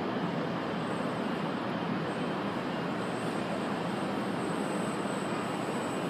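Remote-control model airplane's motor droning as it flies overhead, with a thin high whine that grows stronger in the second half, over a steady background hum.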